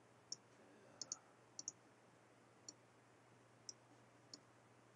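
Faint clicks of a computer mouse button, about eight scattered over the few seconds, some in close pairs.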